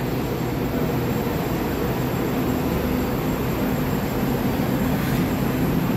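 Steady hum and whir of an 81-765 'Moskva' metro train standing at the platform with its doors open, its onboard equipment running while it waits to depart.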